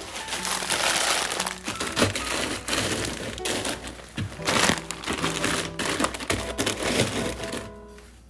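Plastic bags and food packaging crinkling and rustling as they are handled, with many sharp crackles, over background music.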